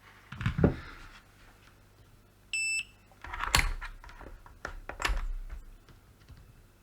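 A digital multimeter beeping once: a short, steady, high electronic tone lasting about a third of a second. Around it are a few clicks and knocks from the test probes and the circuit board being handled.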